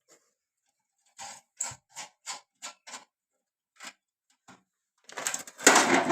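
Parts of a gas stove being handled during a repair: a string of light clicks and taps, then a louder rough scraping rattle near the end.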